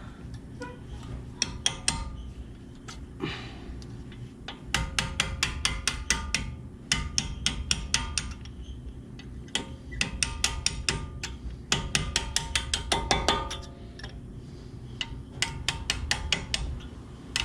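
Hammer tapping a steel punch to drive out the guide pins of a Brembo brake caliper: quick runs of sharp metallic taps, each with a short ringing note, in about six bursts with short pauses between. The pins are stuck because they have not yet been punched all the way out.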